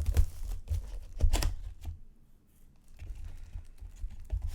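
Baseball card box packaging and cards being handled: crinkly tearing and sharp clicks in the first two seconds, a brief lull, then lighter rustling.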